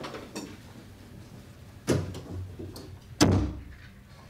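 Office drawers being slammed shut: a light knock at the start, then two loud bangs about a second and a half apart, each with a short ring.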